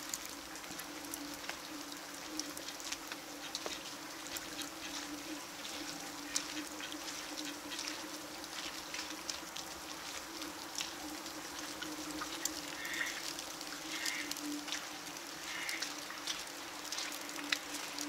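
Light scattered patter of falling wet snow and drips over a steady low hum. Near the end a bird gives three short calls, about a second apart.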